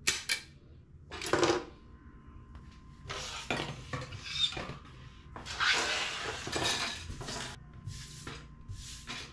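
Hard plastic model-kit runners and parts clattering and rattling as they are handled and set down on a table, in several short bursts.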